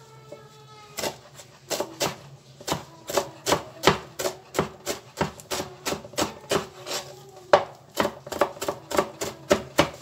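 Kitchen knife chopping fresh coriander on a plastic cutting board: quick, even knocks of the blade on the board, about three a second, starting about a second in.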